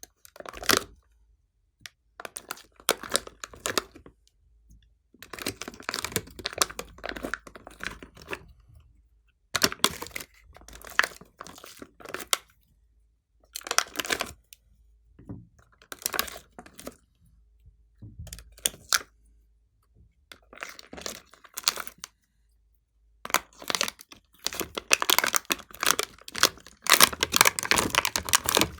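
Hands squishing and kneading glossy slime: bursts of sticky clicking and popping as air pockets burst, with short pauses between handfuls.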